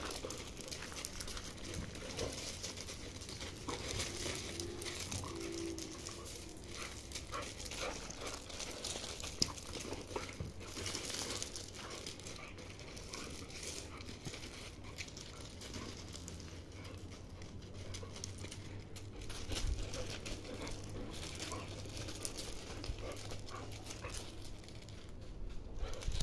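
A Belgian Malinois and a mixed-breed dog play-wrestling on gravelly ground: their paws scuff and crunch in many short scrapes and crackles, with a brief dog vocalization about five seconds in.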